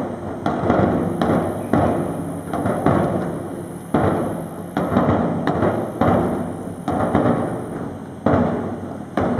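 Large festival drums beaten in a slow, steady rhythm, about one stroke a second, each stroke ringing out before the next.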